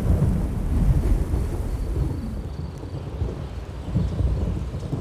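Thunder rumbling during a thunderstorm, loudest in the first two seconds and then slowly dying away.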